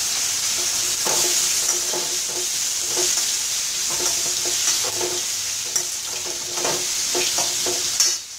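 A steel spatula stirs and scrapes diced pumpkin in a stainless steel kadai, in irregular strokes about two a second, each with a faint metallic ring from the pan. Oil sizzles steadily underneath as the pumpkin sautés for a stir-fry.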